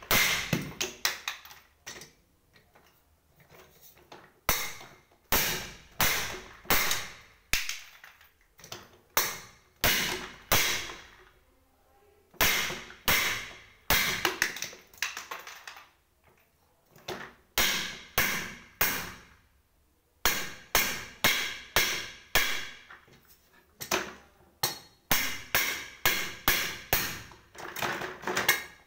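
Repeated sharp metallic knocks with a short ringing tail, from the chrome five-star base of an upturned office chair being jerked and struck to work it loose from the gas-lift cylinder. The knocks come in runs of several, about two a second, with brief pauses between the runs.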